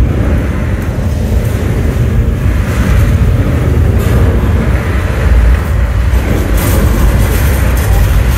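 Staged earthquake special effects: a loud, continuous deep rumble with dense noise on top.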